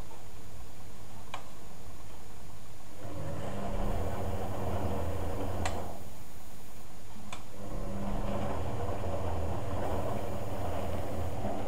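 Hoover A8506 Energy Control 1100 washing machine tumbling its drum. The motor starts humming about three seconds in, stops briefly about seven seconds in and starts again, with a few sharp clicks.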